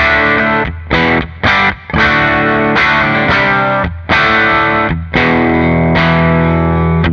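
Electric guitar played through channel 1 of an AmS Revenge 50S, a 50-watt two-channel tube amp with KT77 power tubes, into a 1x12 open-back cabinet with a Mojotone BV30 speaker, at a distorted tone. Strummed rhythm chords, some cut off short with brief stops and others left to ring.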